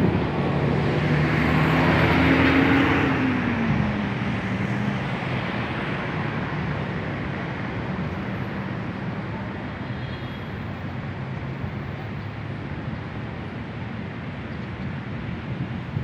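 A motor vehicle passes close by, louder about two to three seconds in, its engine note falling in pitch as it goes away. Steady traffic noise runs under it.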